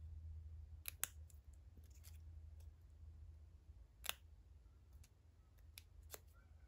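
Scissors snipping a narrow strip of paper: a few faint, sharp snips, the clearest about a second in and just after four seconds in. A faint low hum runs underneath.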